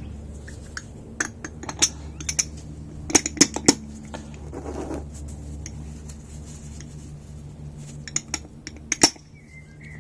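Scattered sharp clicks and metallic taps from working a motorcycle fork dust seal into place by hand. The seal is not clipping into the fork leg.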